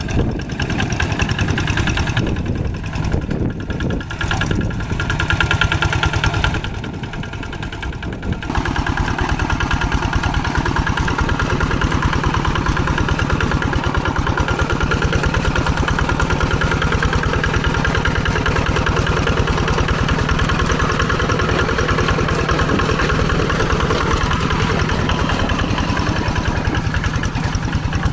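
Old tractor engine running with a steady, rapid firing beat; it runs unevenly and dips for the first eight seconds or so, then settles into a steady, slightly louder run.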